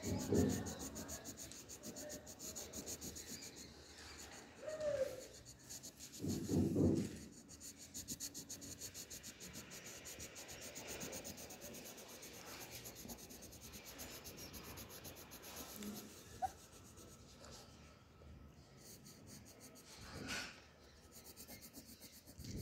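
Graphite pencil scribbling rapidly back and forth on paper, shading in a solid area with quick repeated strokes. Two louder low muffled bursts stand out, about half a second and about seven seconds in.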